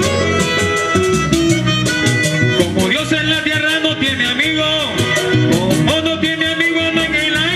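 Live vallenato music: a button accordion playing over a steady percussion rhythm of drums and scraped strokes, with a man's singing voice coming in about three seconds in.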